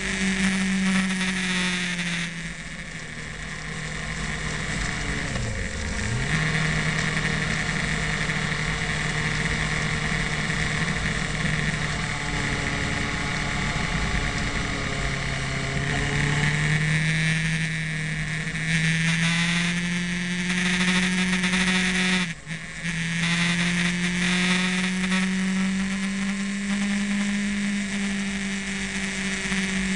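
Motorcycle engine heard from on board while riding, its note falling and rising with the throttle through a run of bends, with a brief break in the engine sound about two-thirds of the way through. A steady rushing noise runs under it.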